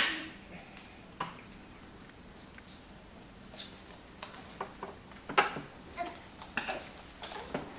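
Plastic ride-on toy car and a crawling baby on a hardwood floor: a sharp knock right at the start, then scattered taps and knocks, with a few short high squeaks.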